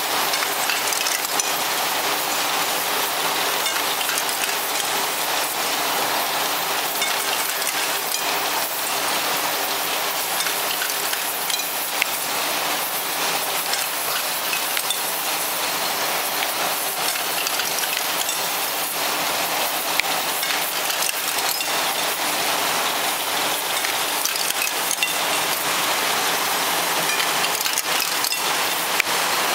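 Glass vial forming machine running: a steady hiss from its gas burners, with scattered clicks and clinks from the rotating mechanism over a faint low hum.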